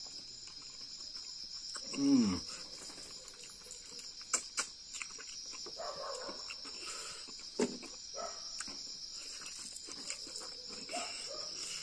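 Crickets chirring steadily, with the smacking and small clicks of someone eating by hand. About two seconds in comes a short, loud sound falling in pitch.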